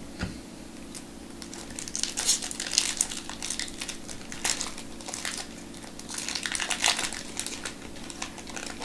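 Foil wrapper of a Bowman Chrome baseball card pack crinkling as it is torn open by hand, in several bouts of crackling.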